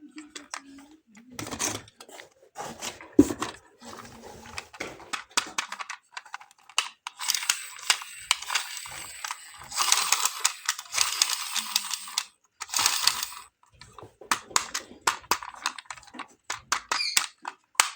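Toy cars and their plastic packaging being handled: a run of small clicks, taps and rattles, with a few stretches of rustling near the middle.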